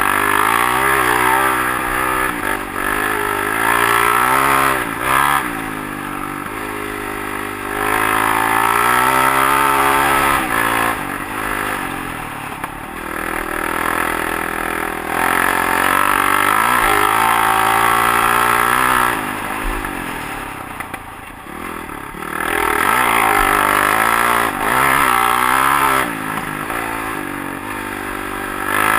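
Honda CRF450X dirt bike's single-cylinder four-stroke engine running while riding, its pitch rising and falling with the throttle: several loud spells of pulling broken by quieter dips off the throttle.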